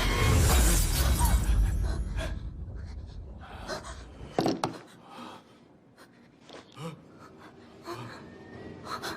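A loud, noisy crash that dies away over the first few seconds, followed by scattered short clicks and knocks.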